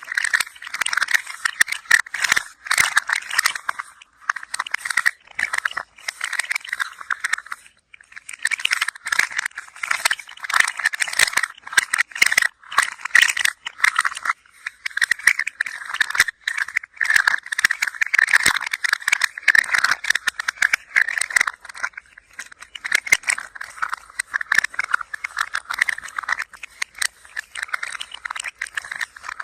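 A hand-held toy being moved and rattling: a dense, continuous run of quick clicks and clatters, with a few short pauses along the way.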